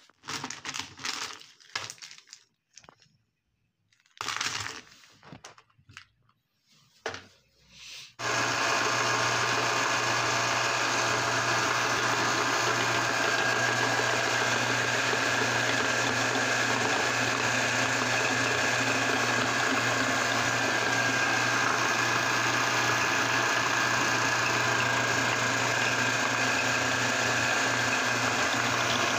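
Small hard pieces of white candy clicking and rattling as hands stir them on a tray. About eight seconds in, a meat grinder starts with an abrupt, very steady mechanical drone and a low hum, and keeps running as it extrudes the candy.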